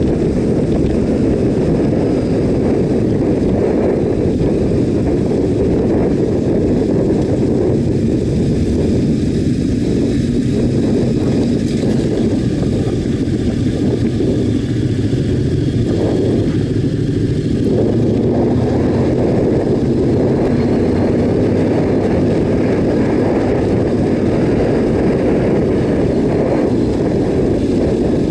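Yamaha Ténéré 700's parallel-twin engine running steadily under way, heard from on the bike, with wind and tyre noise mixed in as it rides over cobbles and then a gravel track.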